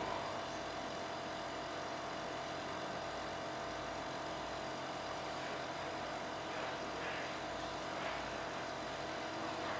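Electric suction unit running steadily as a catheter draws simulated sputum from a training manikin's mouth, with a couple of brief swells in the sound a few seconds before the end.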